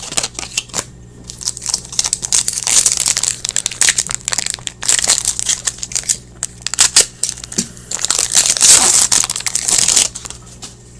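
Foil wrapper of a 2015-16 Portfolio hockey card pack crinkling and crackling as it is handled and torn open. The crinkling stops shortly before the end.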